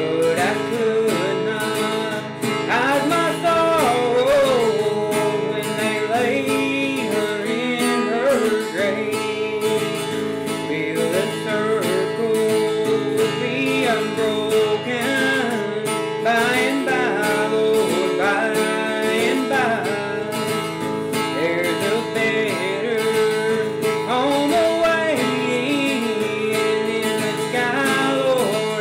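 A man singing while strumming a cutaway acoustic guitar.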